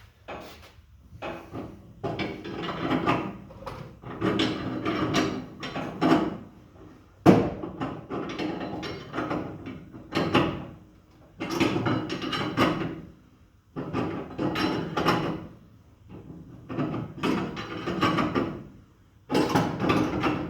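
Homemade coil spring compressor being unwound in repeated mechanical strokes of about a second each, with short pauses between them, slowly letting a compressed front coil spring down.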